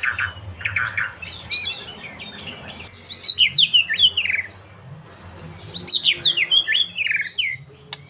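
White-rumped shama singing a song stocked with lovebird-style chatter. It comes in three bouts of rapid chirps and sharply falling whistled notes: one at the start, one about three seconds in, and one about six seconds in. A faint low hum lies underneath.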